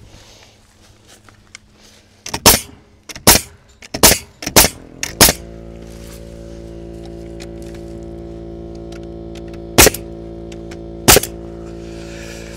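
Sharp single shots of a nail gun driving nails into wooden corral boards, several in quick succession and then two more near the end. A steady motor hum starts about five seconds in.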